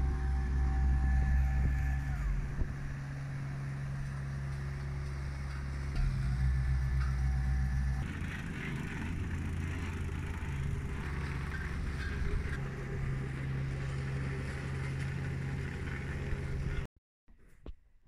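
Hamm tandem asphalt roller's diesel engine running steadily, its note shifting a couple of times. The sound cuts off suddenly near the end.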